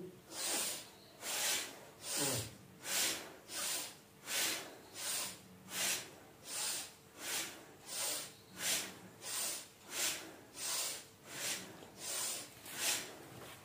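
A woman breathing rapidly and forcefully, about three sharp, airy breaths every two seconds in an even rhythm, paced to fast repetitions of cobra pose (bhujangasana).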